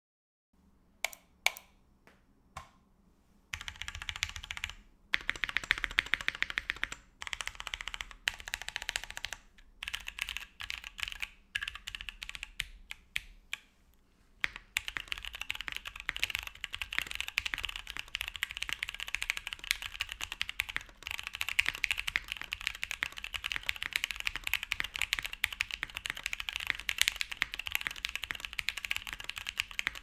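Freebird TKL mechanical keyboard with lubed and filmed JWK T1 tactile switches and Keysterine keycaps being typed on. It starts with a few single keystrokes, goes into bursts of typing with short pauses, and settles into continuous fast typing from about halfway through.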